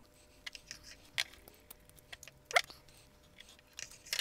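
Quiet handling: a microfibre cloth rustling and metal slip-joint pliers clicking lightly as they are set around the grinder's head to unscrew it, with a brief rising squeak about two and a half seconds in.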